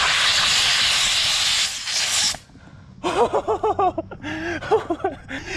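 Pressurised air hissing loudly out of an inflatable stand-up paddleboard's open valve as the pump hose comes off. The valve was left open while pumping, so the air escapes until the hiss cuts off suddenly about two and a half seconds in.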